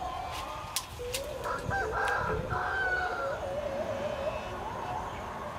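A rooster crowing once: a long call that starts about a second in, rises, then wavers as it trails off. A few light clicks sound around it.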